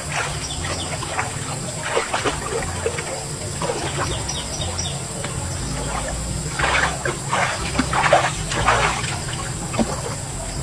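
Water splashing and sloshing as a person bathes chest-deep in a river, scooping water over her shoulders and arms, in irregular bursts. The heaviest splashes come about two-thirds of the way through, over a steady low rumble.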